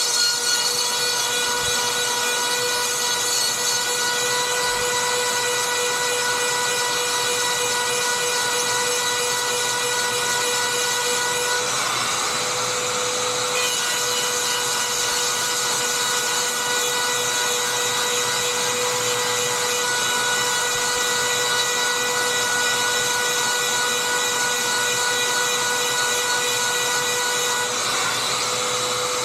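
Dremel rotary tool running at a steady high whine, grinding the cutting teeth of a chainsaw chain with a hiss of grinding.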